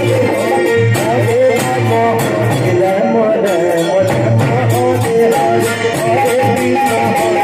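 Live kirtan music in a Holi tune: a wavering melodic lead over a steady low bass and a regular percussion beat.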